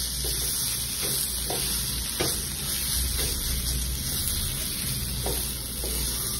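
Silicone spatula stirring and scraping coarsely ground almond paste into semolina roasting in hot ghee in a nonstick kadhai, with irregular scraping strokes over a steady sizzle.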